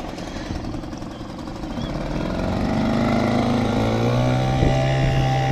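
Parsun 3.6 hp two-stroke outboard motor on an inflatable dinghy, running slowly and then opening up as the dinghy gets under way. From about two seconds in its pitch and loudness rise for a couple of seconds, then it holds steady at higher revs.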